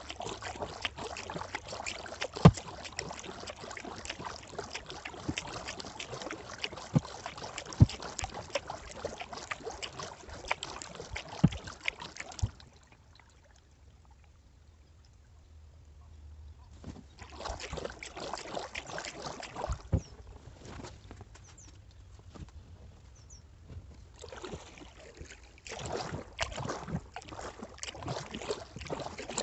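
Kayak paddling: water splashing and dripping off the paddle blades with each stroke, and a few sharp knocks. The paddling stops for about four seconds near the middle, resumes, and pauses briefly again near the end.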